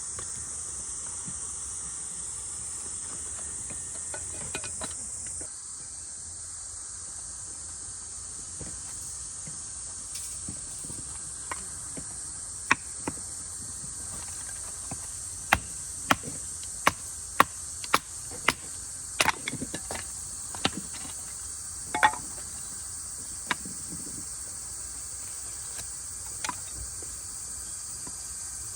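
Insects chirring steadily at a high pitch, with a run of sharp knocks: scattered at first, then a quick irregular series about halfway through, then a few more later.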